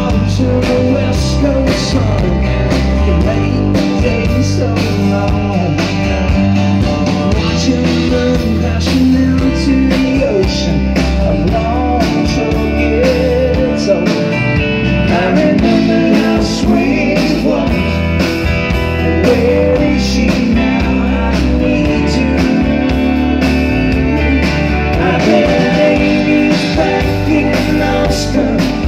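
Country rock band playing live through a PA: electric guitars, electric bass and drums, with a man singing lead.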